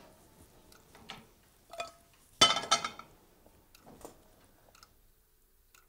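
Metal pots and pans being set down on a gas range: a few light clanks and knocks, the loudest a short cluster about two and a half seconds in with a brief metallic ring.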